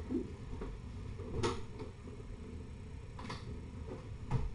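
Three faint knocks or clicks, about 1.4 s, 3.3 s and 4.4 s in, the last a little louder, over a steady low rumble.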